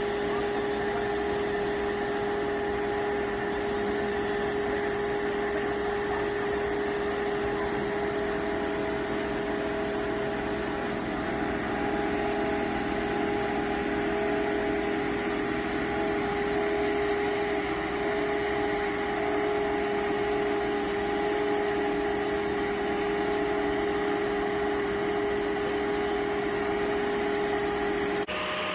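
Mobile scrap baler with a crane grapple, its engine and hydraulic pump running steadily: an even drone with a constant whine, no knocks or crashes.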